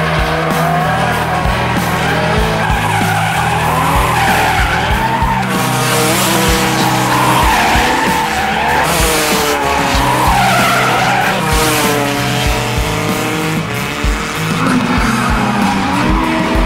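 Drift cars sliding, their engines revving up and down in repeated rising and falling sweeps, with tyre squeal. Background music with held bass notes plays underneath.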